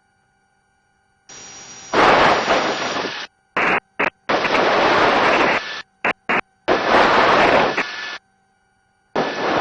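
Helicopter intercom audio: bursts of loud rushing noise, rotor and wind noise picked up by a headset microphone, cut in and out abruptly several times with dead silence between. This is the pattern of a voice-activated intercom mic opening and closing.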